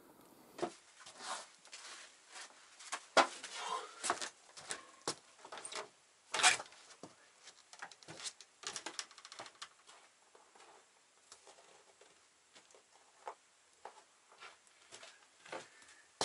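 Irregular footsteps, knocks and clicks as a man moves about a log cabin's plank floor and doorway. The two sharpest knocks come about three and six and a half seconds in.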